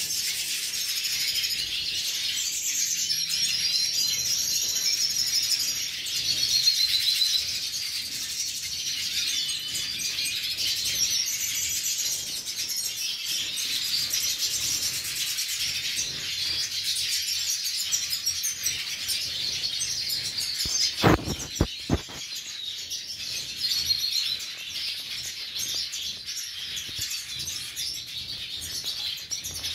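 A flock of aviary siskins (Spinus finches: black-headed, hooded, red and related species) twittering and singing together in a dense, continuous chorus of high trills and chirps. A few sharp knocks sound about two-thirds of the way through.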